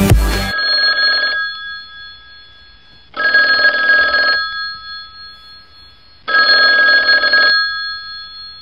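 Telephone ringing three times, each ring lasting a little over a second with pauses of about two seconds between.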